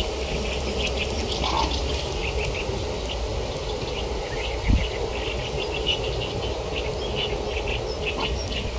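Outdoor ambience of many short, high chirping calls from small animals, repeating irregularly over a steady low rumble, with one brief thump about halfway through.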